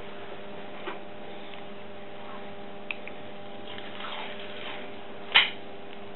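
An adhesive plaster being handled and pressed onto the back of a hand: faint rustling and a few small ticks, with one sharp snap about five seconds in. A steady electrical hum runs underneath.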